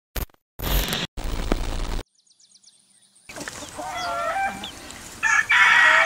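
A few short bursts of noisy sound effects, then after a brief silence chickens clucking and calling, with a louder run of calls near the end.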